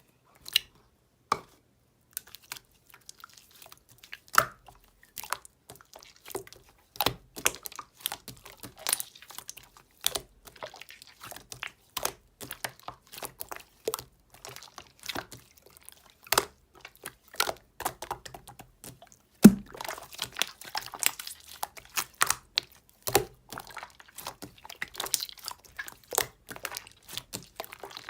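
Clear slime being pressed, stretched and folded by hand, giving a dense, irregular run of sticky clicks and small bubble pops, with one louder pop about two-thirds of the way through.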